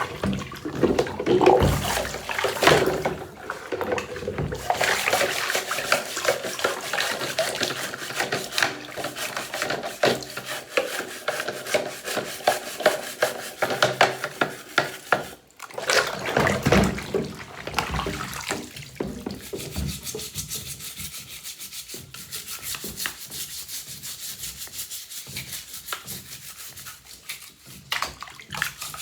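Scrubbing of Shark vacuum parts in soapy water, in quick irregular strokes with some wet sounds. The strokes are dense for about the first eighteen seconds, with a brief break around fifteen seconds, then grow fainter and sparser.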